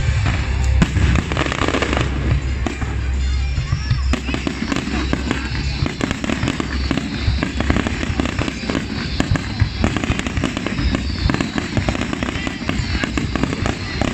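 Fireworks display: a rapid, continuous barrage of bangs and crackling, with heavy low booms through the first few seconds, then dense crackle.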